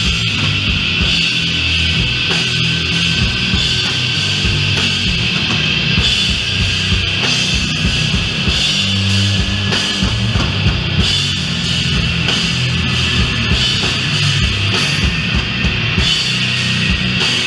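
Live doom metal band playing loud and steady, with heavy low chords and drums.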